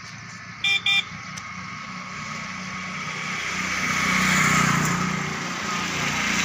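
Two short beeps of a motorcycle horn about a second in, then a small motorcycle engine approaching and passing close by, loudest a little past the middle.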